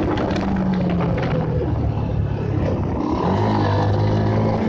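Bajaj Pulsar motorcycle's single-cylinder engine running while riding, with road and wind noise. The engine pitch dips and then climbs again about three seconds in.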